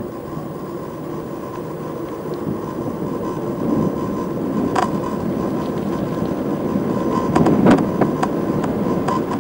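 Steady low outdoor rumble with a faint constant tone, and a run of sharp clicks or knocks in the second half.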